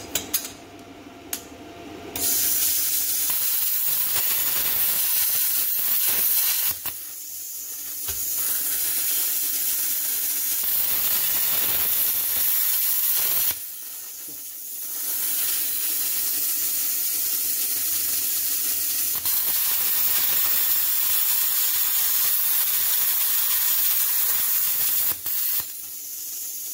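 Hynade PLC-50DP pilot-arc plasma cutter cutting quarter-inch plate: a loud, steady hiss that starts about two seconds in. It breaks off three times, with a quieter hiss in the short pauses between stretches of the cut.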